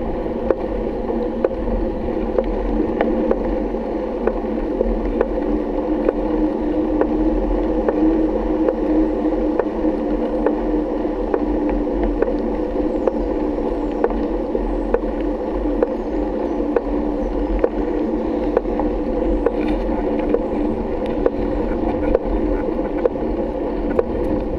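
Bicycle riding on a paved road: a steady, muffled rumble of tyres and frame vibration, crossed by light ticks that come at a regular rate.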